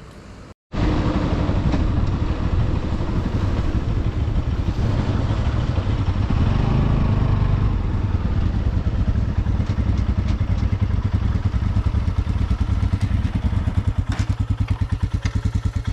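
Motorcycle engine running steadily, its fast, even exhaust pulses standing out more clearly near the end.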